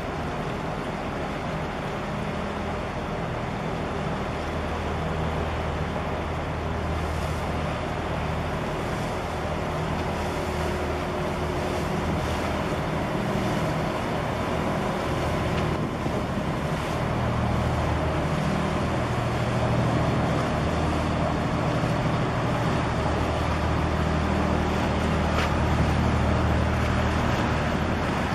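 A 330-metre container ship's engine droning low and steady as the ship passes close by, under a rushing hiss of water and wind. The drone grows a little louder past the middle.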